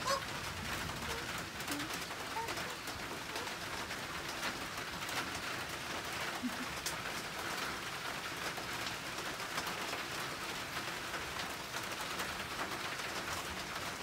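Steady outdoor background hiss with a few faint, scattered bird calls.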